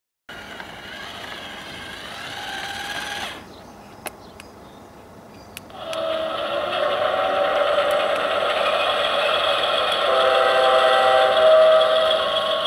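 Playmobil RC diesel locomotive's running sound, a steady whirring hum with several whining tones, starting about six seconds in. A quieter sound with wavering tones comes first and stops about three seconds in.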